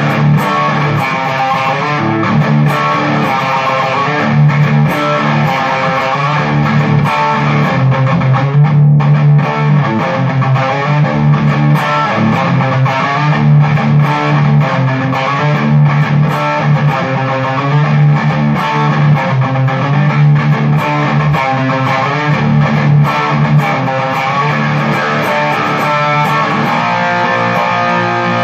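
Schecter Strat-style electric guitar played through a VOX MV50 Rock mini amp head and speaker cabinet, picked up by a phone's microphone. It plays a repeating riff built on strong low notes, with a momentary break about nine seconds in.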